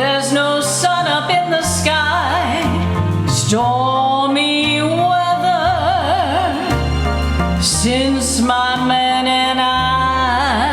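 Music: a female voice singing long notes with wide vibrato, layered in harmony with itself, over a bass line that steps from note to note.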